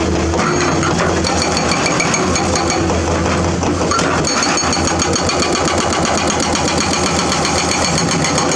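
Komatsu hydraulic excavator's diesel engine running steadily under working load, with a fast even clatter and a thin high whine joining about a second in.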